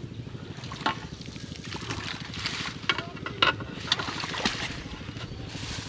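Shallow water sloshing and splashing as a basin is moved and handled in the water, with a few sharp splashes or knocks about 1, 3, 3.5 and 4.5 seconds in, over a steady low background rumble.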